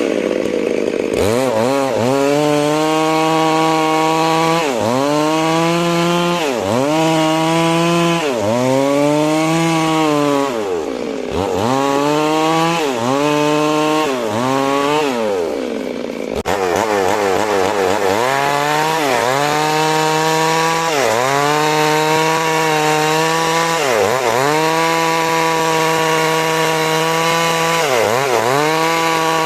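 Stihl MS 382 two-stroke chainsaw at high revs, ripping lengthwise through a large rain tree (trembesi) log. The engine pitch sags under load and recovers every second or two, with an abrupt break about halfway through.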